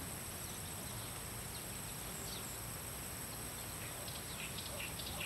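Rural background ambience: a steady high insect drone, with a few faint bird chirps near the end.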